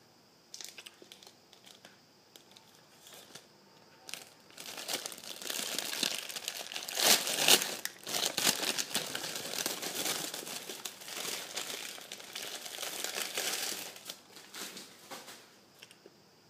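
Donut packaging crinkling and tearing as it is handled and unwrapped. It starts about four seconds in, is loudest around the middle, and dies away shortly before the end.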